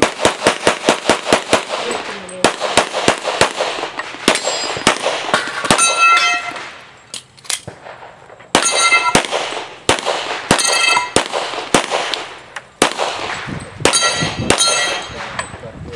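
Rapid pistol fire from a Springfield Armory XDm in .40 S&W, strings of quick shots, several followed by steel targets ringing after hits. There is a pause of about two seconds for a reload near the middle.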